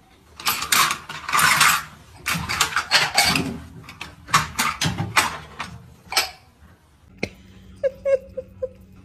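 A cat rummaging inside an under-sink cabinet, making a series of scraping and rustling noises in short bursts. About a second before the end, a person gives a short laugh.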